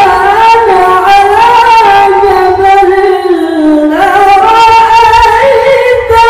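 A man's voice reciting the Qur'an in the melodic tilawah style, holding long ornamented notes with a wavering vibrato. The line sinks to a low note about three seconds in, then climbs sharply back up at about four seconds.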